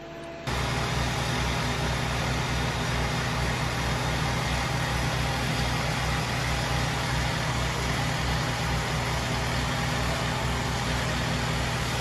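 A heavy truck engine idling steadily, with a regular low pulsing. It starts suddenly about half a second in.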